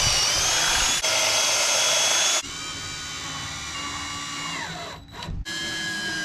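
Cordless drill boring pocket holes through a pocket-hole jig, its motor running flat out with a short break about a second in. After about two and a half seconds a quieter cordless drill driving screws into a pine board takes over, its whine slowing and dropping in pitch twice, with brief stops in between.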